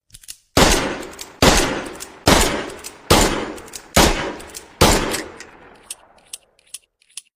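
Smith & Wesson Model 10 .38 Special revolver firing six shots, a little under a second apart, each ringing out and fading before the next. A few faint metallic clicks follow the last shot.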